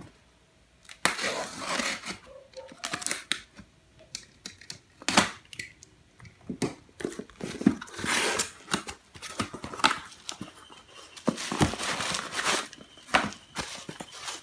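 Cardboard shipping box being opened and bubble wrap crinkling as a boxed electronics kit is unwrapped. It starts about a second in and goes in uneven spells of rustling with sharp clicks and scrapes.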